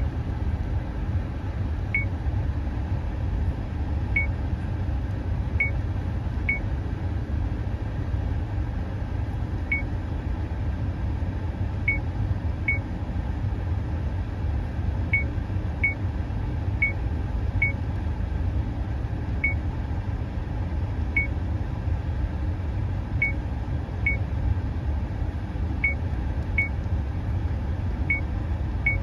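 Dashcam button tones: about twenty short, identical high beeps at uneven intervals, each one a button press while stepping through the settings menu, with the speaker volume set to low. Under them runs a steady low rumble.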